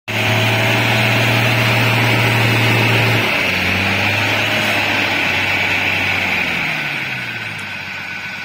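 Old truck's engine working hard under load on a steep dirt climb, running at a steady pitch and then dropping in revs about three seconds in, falling off further near the end.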